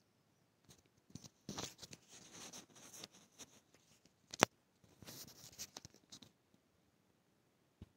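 Crochet hook working yarn through the stitches of a chain: soft scraping and rustling of yarn in two spells, with one sharp click a little after four seconds in.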